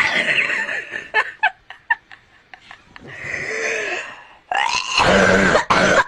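A child laughing in short, quick bursts, then making loud, harsh coughing sounds near the end.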